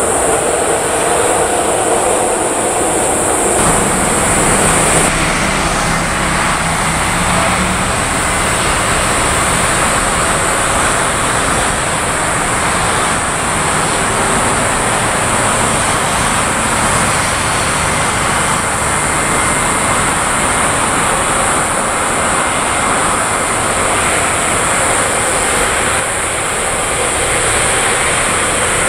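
Boeing 777 freighter's GE90 turbofan engines running at taxi power as the jet rolls along the taxiway: a steady, loud jet noise with no break.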